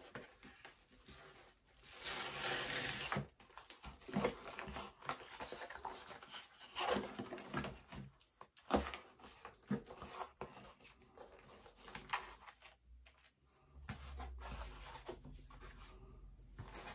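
A mail-order parcel's packaging being handled and opened by hand: rustling of the wrapping with scattered short handling noises, and a longer, louder rustle about two seconds in.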